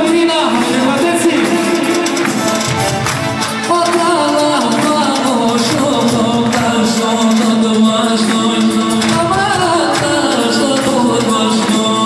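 Live tallava music played loud through a PA: a male singer sings into a handheld microphone over amplified backing with a steady, fast beat.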